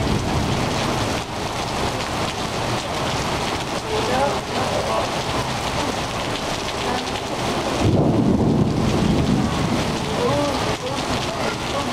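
Heavy rain pouring down and splashing on paving, a dense steady hiss. About eight seconds in a deeper low rumble swells for a second or so, then the rain goes on as before.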